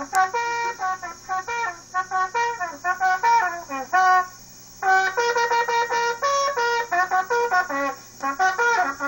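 Trumpet-led brass music playing a quick, lively melody of short notes with a few sliding notes, pausing briefly a little over four seconds in.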